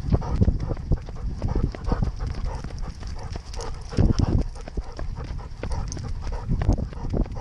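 Weimaraner panting as it runs, over a fast run of thudding footfalls and knocks, heavier around four seconds in.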